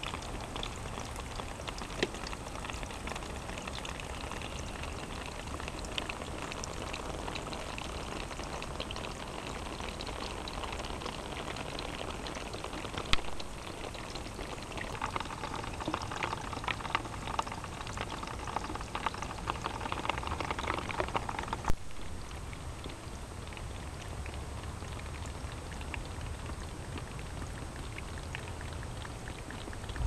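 Water trickling and dripping over wet rocks, with many small splashes over a steady low rumble. Past the middle the splashing grows busier for several seconds, then cuts off abruptly.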